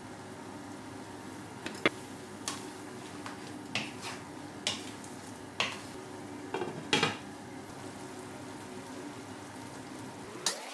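A utensil stirring a wok of simmering coconut-cream fish stew, clinking and knocking against the pan several times over a steady sizzle.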